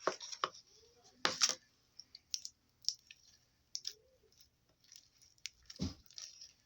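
Glue-and-activator slime being squished and kneaded by hand: irregular short wet squelches and sticky clicks, with a heavier thump about six seconds in.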